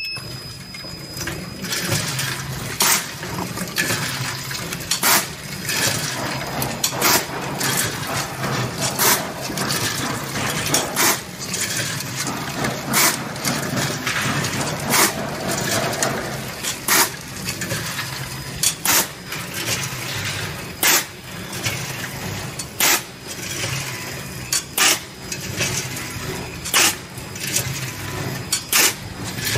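ATM-320C automatic vertical packing machine running on popcorn. It switches on at the start, then runs with a steady motor hum, a sharp mechanical clack about every two seconds, and popcorn rattling through the volumetric cup feeder.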